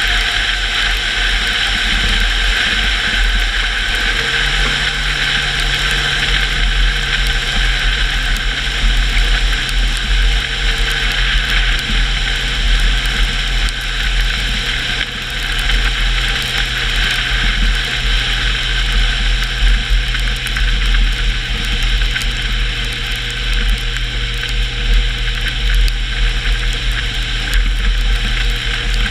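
Car engine running steadily under way, with constant road and tyre noise; the engine note steps up in pitch about four seconds in and then holds.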